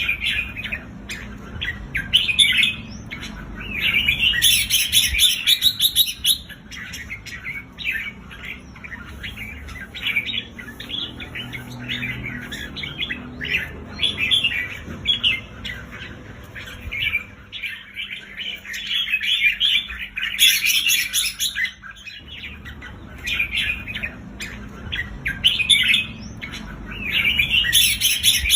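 Red-whiskered bulbul giving the excited, rapid chattering 'rik' call: dense runs of short, quick notes. Louder, fuller spells come about four seconds in, around twenty seconds, and again near the end.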